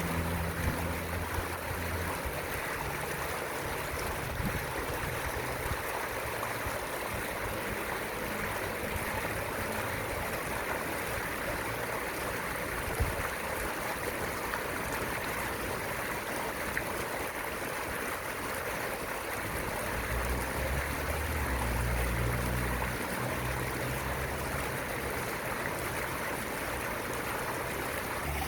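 Fountain water splashing and rushing steadily. A low rumble swells in at the very start and again about twenty seconds in.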